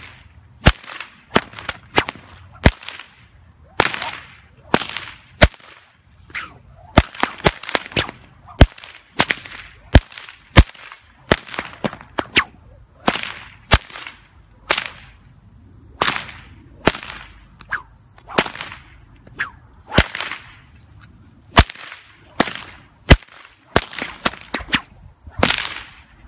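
A 4.5-foot 550 paracord stock whip cracked over and over one-handed: a long run of sharp, loud cracks, about one or two a second, with the swish of the swinging cord between them.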